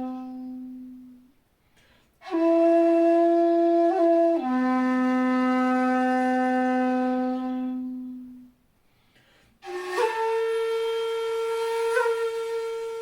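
Jinashi shakuhachi, a 2.0-shaku bamboo flute in C, playing long held notes. A low note fades out, and after a short pause a higher note is followed by a return to the low note, held and fading. After a second pause a note slides up into a higher pitch and is held with small flicks of ornament.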